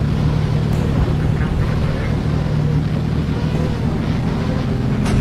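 A heavy engine running with a steady, even low drone.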